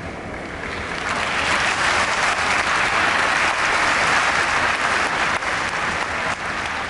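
Large arena crowd applauding, swelling about a second in and holding steady, with individual sharp claps standing out near the end.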